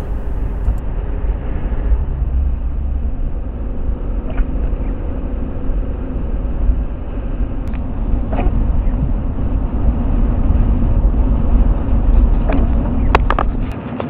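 Steady low rumble of a vehicle's engine and tyres heard from inside the cab while driving a snow-covered highway, with a few short clicks near the end.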